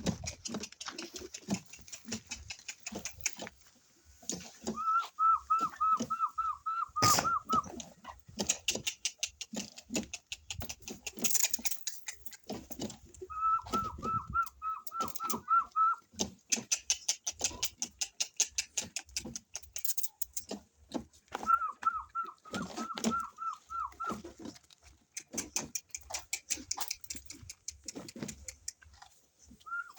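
Domestic chickens calling. Four bouts of a rapid, warbling trill, each two to three seconds long and held at one pitch, come amid scattered clicks and scratchy rustling.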